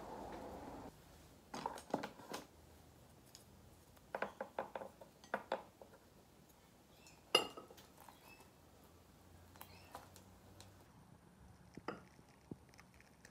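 Pot, chopsticks and bowl knocking and clinking lightly while cooked instant noodles are stirred and poured from a speckled pot into a bowl, with one sharper clink about seven seconds in that rings briefly. A steady hiss runs for about the first second.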